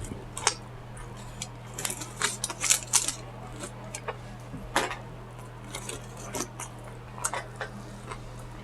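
Scattered clicks and crinkles of takeout food and its packaging being handled during a meal, over a steady low hum.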